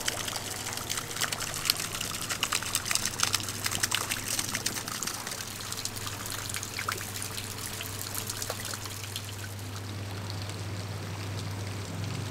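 Hot mineral water trickling and dripping down the face of a travertine mound, a patter of many small splashes that thins out in the last few seconds, over a low steady hum.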